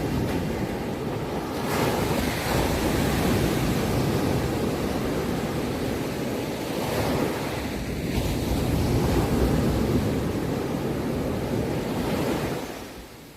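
Sea waves breaking and washing: a long surge of surf that holds for about twelve seconds, then dies away near the end.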